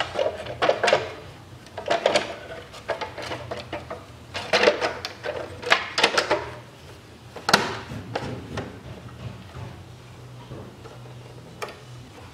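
Hard plastic clicks, knocks and rattles as the upper timing-belt cover and a clipped-in tube are worked by hand into place, in short clusters with the sharpest snap about seven and a half seconds in, then fewer clicks. A low steady hum runs underneath.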